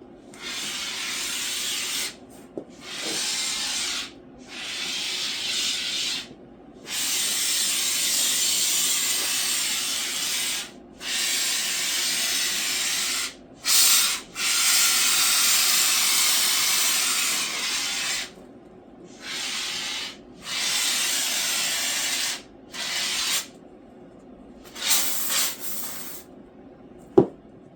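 Can of expanding spray foam hissing as it is dispensed in repeated bursts of one to four seconds, with short gaps between them, and a single sharp click near the end.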